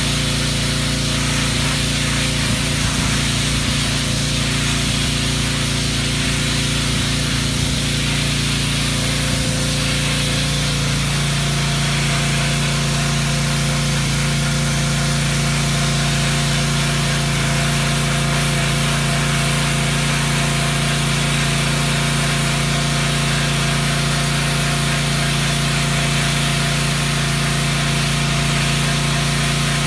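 Pressure washer running steadily, its high-pressure spray hissing against the concrete walk as the wand strips off grime, over the constant hum of the machine's motor and pump. The hum shifts slightly in pitch about eleven seconds in.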